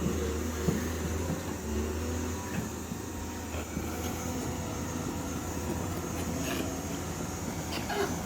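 Caterpillar 320D hydraulic excavator's diesel engine running steadily, with a few short knocks near the end.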